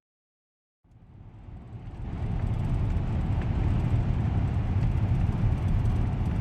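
Steady low rumble of a moving vehicle's road and engine noise, fading in about a second in after silence.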